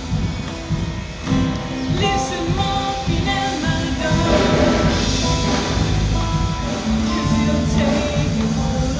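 Recorded music playing loud and steady: a song with held melodic notes over a regular beat.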